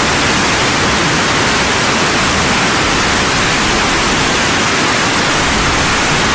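A loud, steady hiss like radio static, even across all pitches. It starts and cuts off abruptly, with no separate splashes or impacts in it.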